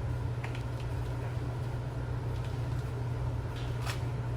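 Steady low hum, with a few faint crackles, about half a second in and again near the end, as a grapefruit's peel is torn off by hand.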